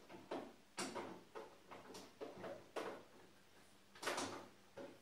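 Light metal clicks and knocks from handling the steel lid of a roll-around tool cart and the chain holding it as the lid is straightened up. The loudest knock comes about four seconds in.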